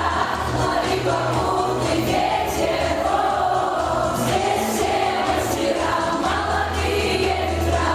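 Background music: a song with choir-like sung vocals over a steady bass line.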